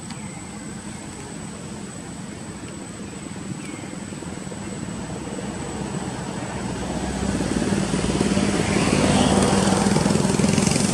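Engine drone that grows steadily louder from about six seconds in, as a motorised vehicle or aircraft approaches.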